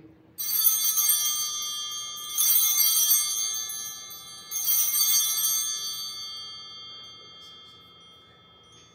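Altar bells rung three times, about two seconds apart, each strike leaving a high ringing that fades slowly over several seconds; they mark the elevation of the chalice after the words of institution.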